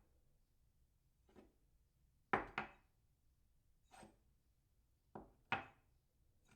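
A cup set down on its saucer again and again: about six short clinks with a brief ring, two of them quick double clinks as the cup settles.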